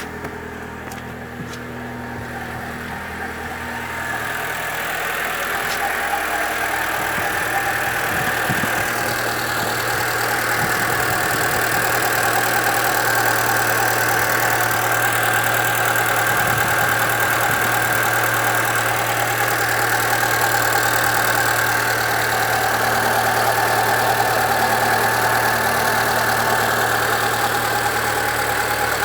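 Chevrolet Celta 1.0 VHCE engine idling, with a steady rumble and whir from the belt and water-pump area at the front of the engine, getting louder over the first dozen seconds and then holding steady. A new timing belt has not cured the noise, and the owner takes a water pump with slight play for the likely cause.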